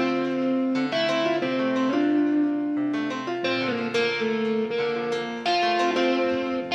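Instrumental background music: a steady run of sustained notes that changes every half second or so.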